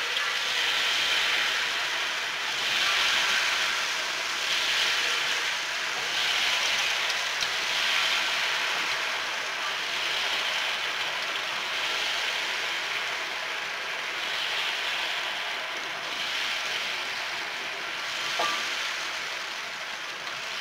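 Batter-coated ripe mango pieces deep-frying in hot oil in a wok: a loud, steady sizzle that swells every couple of seconds as more pieces are dropped in.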